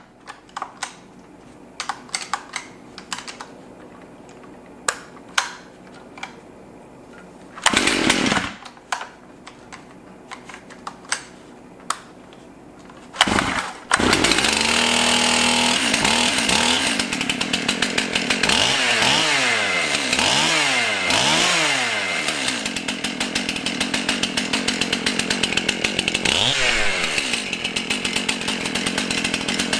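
Stihl MS271 two-stroke chainsaw running. It idles with short throttle blips for the first half, then opens up to high revs about halfway through, revving up and down several times and running loud until near the end. This is the first run after its fuel tank and handle assembly was replaced.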